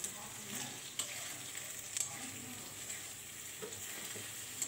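Egg frying in hot oil in a steel kadai: a steady sizzle, with a few sharp clicks about one, two and four and a half seconds in.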